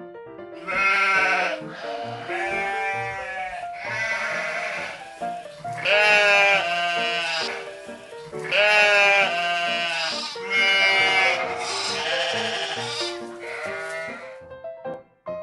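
A lamb bleating: about eight wavering bleats, one after another, over light background music.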